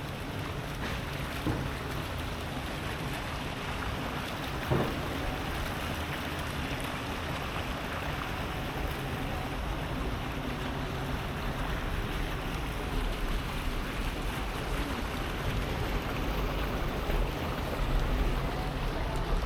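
Steady outdoor rainy-day city ambience: an even wash of rain and distant urban noise, with a sharp knock about five seconds in and low wind rumble on the microphone in the last few seconds.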